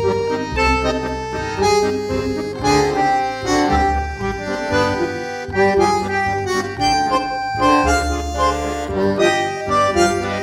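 Music with a sustained, reedy melody over a steady beat.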